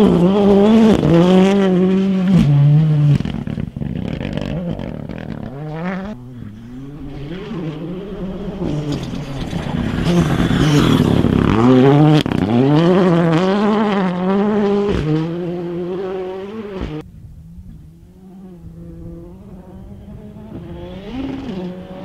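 M-Sport Ford Fiesta Rally2 rally car's engine revving hard on gravel, the pitch climbing and dropping again and again through gear changes. It is loudest as the car passes close, about ten to twelve seconds in. It turns quieter and more distant after a sudden change a little past halfway, then grows louder again near the end as the car approaches.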